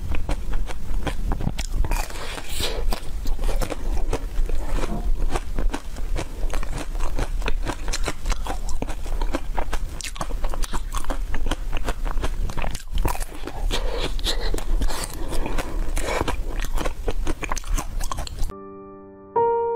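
Close-up biting and chewing of a chocolate-coated ice cream bar with nuts inside, the hard shell crunching and cracking in many quick snaps. Near the end the crunching stops and a few electric piano notes begin.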